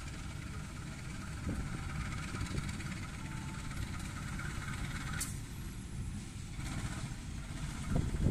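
Diesel locomotive hauling a passenger train slowly toward the listener, its engine a low steady rumble that grows louder near the end, where a few knocks from the wheels on the track come in.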